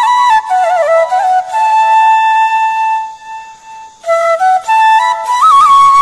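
Background music: a slow solo flute melody with a long held note that fades away about three seconds in, the tune picking up again a second later.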